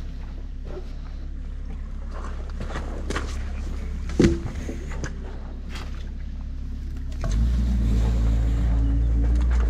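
Sticks and branches of a beaver dam being pulled out and handled, with scattered cracks and knocks and one sharp knock about four seconds in. Under them runs a steady low rumble that gets louder about seven seconds in.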